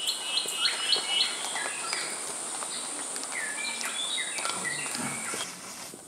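A rainforest songbird calling: a quick run of short repeated notes, then scattered downslurred whistled notes. Behind it an insect keeps up a steady high buzz that cuts off near the end.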